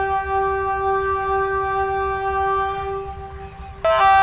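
Diesel locomotive's air horn sounding a long, steady multi-tone blast that eases off about three seconds in, then sounds again more loudly just before the end.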